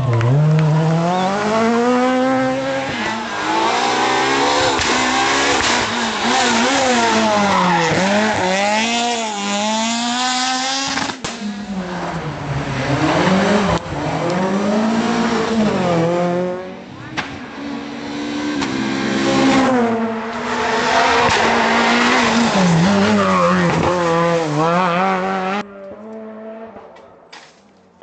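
Renault Clio R3 rally cars' 2.0-litre four-cylinder engines driven hard through a series of stage passes, the revs climbing and dropping again and again with quick gear changes and lifts off the throttle. The engine noise falls away sharply near the end.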